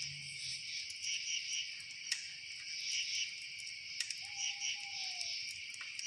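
Steady chorus of crickets chirring, with a few sharp campfire crackles about two seconds in, four seconds in and near the end. About four seconds in, a single held note sounds for about a second.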